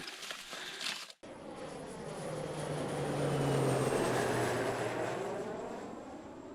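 An aircraft passing overhead: its engine roar swells to a peak about halfway through and fades away, with a high whine that slowly drops in pitch as it goes by. Faint scuffing steps are heard before it, for about the first second.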